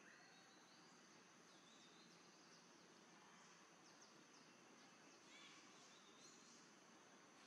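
Near silence: faint outdoor ambience with a steady high insect hum and scattered short, high chirps.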